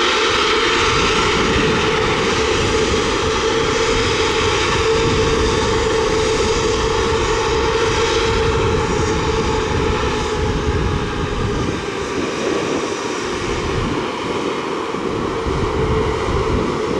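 Boeing 737 MAX 8's CFM LEAP-1B turbofan engines running at high thrust for takeoff: a loud, steady jet rush with a steady humming tone, growing somewhat quieter about twelve seconds in.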